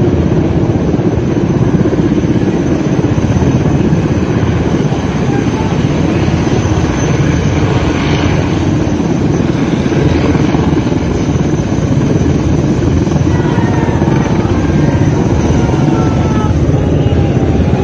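Mi-17 twin-turbine military helicopter hovering, its rotor and engines making a loud, steady, fluttering noise.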